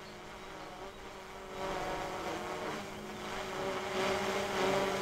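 DJI Mavic 2 Pro quadcopter hovering about 10 metres up: a steady propeller hum made of several held tones that wavers slightly and grows louder about a second and a half in.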